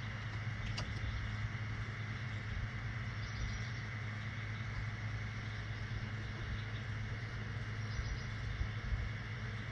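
Steady low mechanical hum, like an engine or motor running, with one faint click about a second in.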